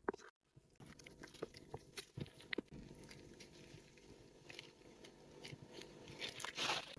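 Faint squelches and plastic crinkles of a mayonnaise pouch being squeezed and rolled up to press out the last of the mayonnaise onto jelly cubes: a few scattered soft clicks, then a closer run of them near the end.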